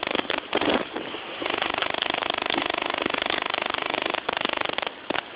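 A rapid, steady buzzing like a small motor, which breaks off and starts again a few times and stops shortly before the end.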